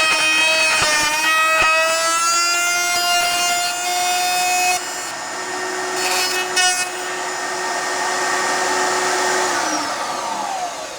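Router running at full speed, a steady high whine that changes tone and drops in level about five seconds in as it works through wood. Near the end the pitch falls away as the motor winds down after switch-off. The cut left chip-out in the wood.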